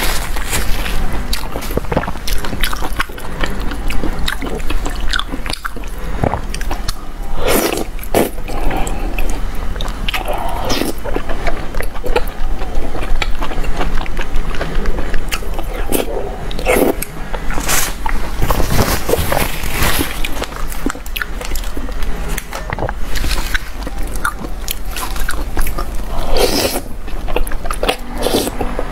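Close-up eating sounds: wet biting, chewing and slurping of soft, fatty braised pork (ji guan you) in a thick sauce, in irregular mouthfuls.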